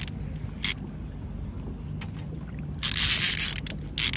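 A steady low hum on a fishing boat, with a loud rushing hiss of under a second about three seconds in and a few shorter hiss bursts before and near the end.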